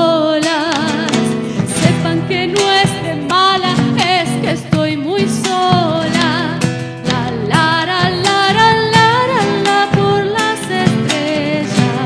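Live acoustic Latin American folk music: a lead melody with wide vibrato over acoustic guitar and hand percussion.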